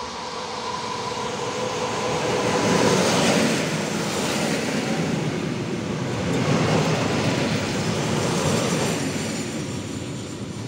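EN57AL electric multiple unit passing along the track. It approaches with a steady tone, grows loudest as the cars go by and fades as it moves away.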